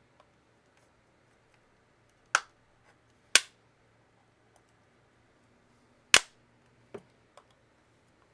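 Hard plastic laptop battery casing cracking and snapping as it is broken apart: three sharp, loud cracks, the first two a second apart and the third a few seconds later, then a couple of fainter clicks.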